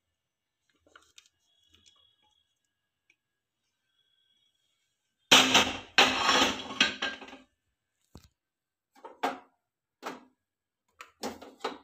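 A wooden spatula scraping and knocking against a non-stick pan as cooked vegetables are pushed out onto a plate: one loud scrape of about two seconds midway, then several short scrapes and knocks.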